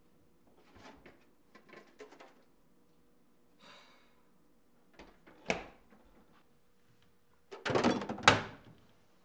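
Kitchen handling sounds: a refrigerator door is pulled open and a plastic milk jug is lifted out. A single sharp thunk comes about five and a half seconds in, and near the end a wooden cabinet door is swung open with a loud cluster of knocks and rattles.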